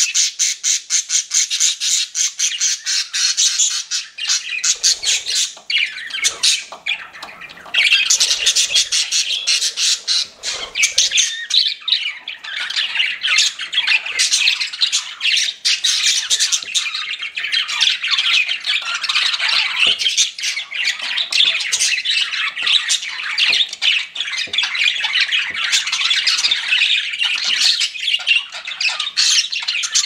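A flock of pet budgerigars chattering together, a continuous mix of high chirps, warbles and squawks. It opens with a fast, even run of clicking calls, thins out briefly, then becomes a dense chatter from about eight seconds in.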